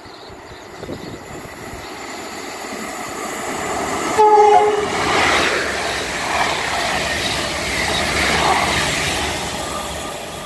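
Class 90 electric locomotive 90002 and driving van trailer 82139 passing through the station at speed. About four seconds in the train sounds a brief two-tone horn, a high note then a low note. The noise of the passing train builds, stays strong for several seconds and eases off near the end.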